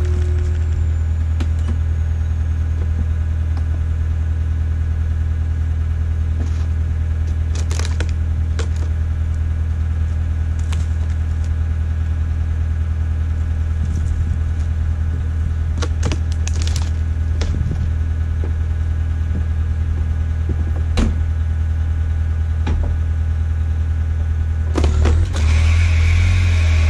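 Skid steer engine idling steadily, with scattered knocks and cracks. About two seconds before the end it grows louder and a higher whine comes in as the machine raises its bucket against the log to free a pinched chainsaw.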